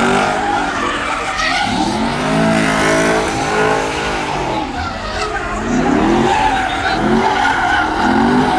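A car doing donuts: its engine revs rise and fall several times over the continuous screech of spinning tires.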